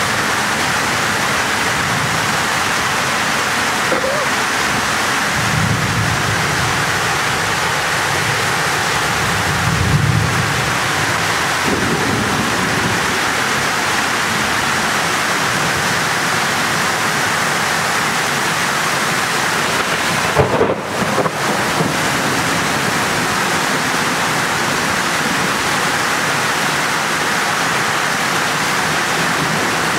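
Heavy rain pouring down steadily, with low rumbles of thunder swelling a few times in the first half. A few brief knocks come about two-thirds of the way through.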